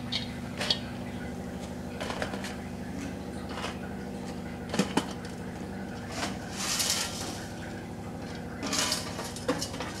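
Blocks of dry Maggi instant noodles being handled and dropped into a pan of boiling masala water: a few light clicks and knocks, with two short rustling, crackling bursts about seven and nine seconds in, over a steady low hum.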